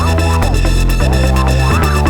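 Loud electronic dance music with a heavy bass line and a fast, steady beat.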